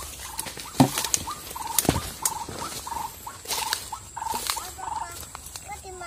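White-breasted waterhen giving short, repeated calls, about two to three a second, over the rustle of vegetation being pushed through, with a couple of sharp knocks near the start.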